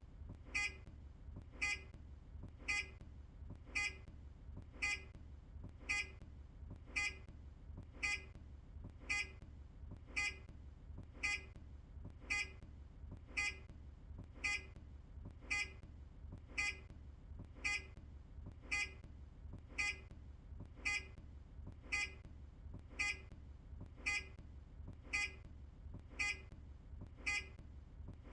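Earlier Optare Solo bus's indicator (turn-signal) sound: a short, sharp, pitched beep repeating evenly about once a second, over a steady low hum.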